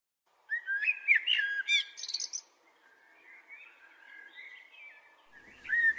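Songbirds singing: a run of whistled chirps and warbles, softer in the middle and picking up again near the end.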